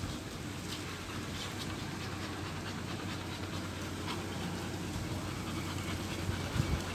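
Boxer dogs panting as they play, over a steady low background hum.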